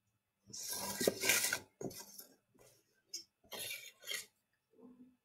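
A paintbrush clinking and scraping against a small cup of coffee water: one longer scrape about half a second in, then several brief clinks.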